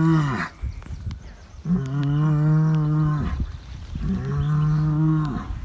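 A bull bellowing: one deep call ends about half a second in, then come two more long bellows, each holding its pitch and dropping at the end. The bull is making a fuss about being moved.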